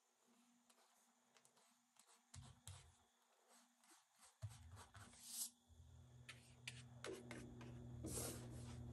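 Near silence with faint, scattered soft dabs and scratches of a thin paintbrush dabbing paint onto paper.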